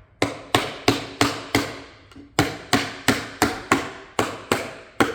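Rubber mallet tapping phenolic plywood shelf parts down onto their tenons: two runs of quick, even knocks, about three a second, with a short pause a little before the middle.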